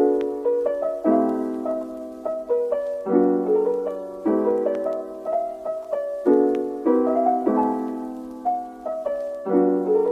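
Background music: a piano playing struck chords in a gentle, even rhythm, with no singing.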